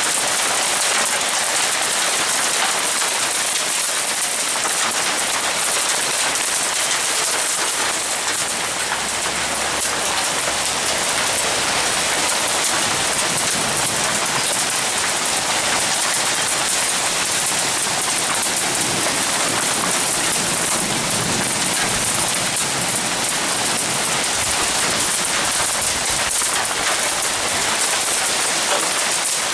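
Hail mixed with heavy rain pelting a shingled roof: a loud, steady, dense hiss of small impacts.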